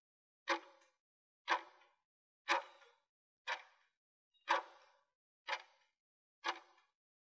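Countdown timer sound effect: a clock-like tick once a second, seven ticks in all, each with a short decaying ring, marking the seconds left to answer a quiz question.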